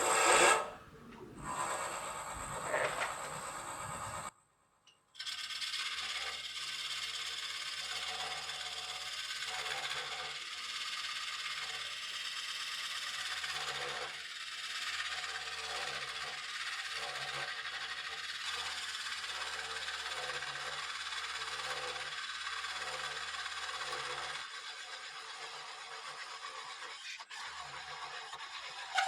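Woodcut Bowl Saver's curved cutter slicing into a spinning swamp kauri blank on a Nova Neptune lathe at 500 RPM: a steady scraping hiss of the blade in the wood, with a brief break about four seconds in.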